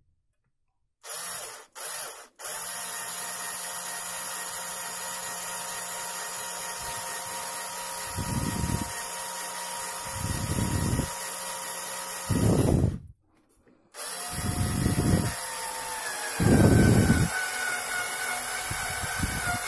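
Cordless screwdriver driving a screw up through a metal shelf bracket into a particle-board shelf: two short blips, then a long steady motor run broken by several louder, lower grinding bursts as the screw bites. It stops for about a second midway, then runs again, its pitch sagging under load before it stops near the end.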